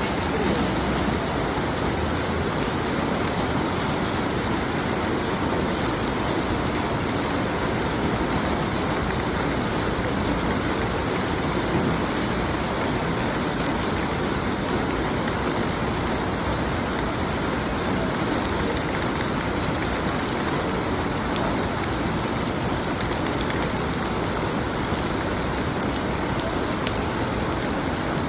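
Heavy typhoon rain falling steadily onto a flooded street: a dense, even hiss that does not let up.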